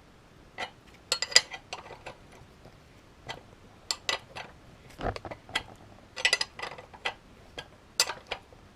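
Irregular metallic clicks and taps of a spanner working a bolt that is being forced through a tight pivot hole, coming in short clusters.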